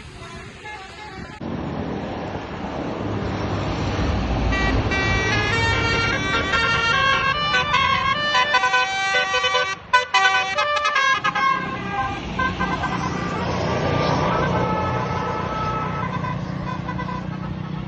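A tour bus's Basuri telolet horn playing a quick melody of shifting notes over the rumble of the bus engine, with a brief break near the middle. Steadier horn tones over the engine follow.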